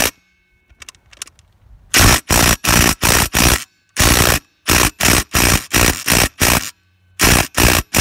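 Ridgid brushless cordless impact driver hammering on a lug nut in a rapid series of short trigger bursts, starting about two seconds in. It fails to break the nut loose.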